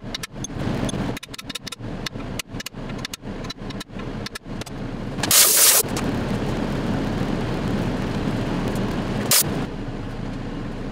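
Hammer tapping a steel punch to drive dowel pins into a cast-iron 4G63 engine block: light, quick metallic taps, about four a second, that stop after about four and a half seconds. A loud hiss-like burst follows about five seconds in, with a shorter one near the end, over a steady noise.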